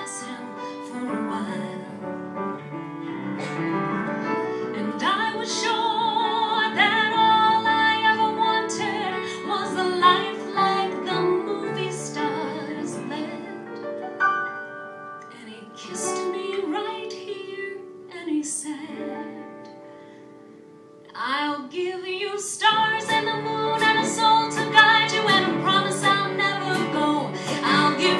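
A woman singing a show tune to grand piano accompaniment, her held notes wavering with vibrato. About two-thirds of the way through the music thins to a quiet passage, then the piano comes back in fuller and louder.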